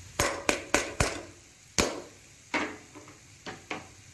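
Metal spoon knocking against a metal kadhai as mashed potato is tipped and shaken off it into the pan. There are about eight sharp taps: four quick ones in the first second, then a few spaced ones.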